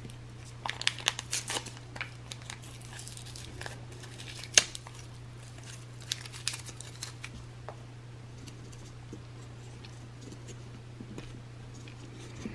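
Lens-cleaning wipes and crinkly packaging being handled. There is a burst of crackling about a second in and another around six seconds, with a sharp click and scattered taps between them, all over a steady low hum.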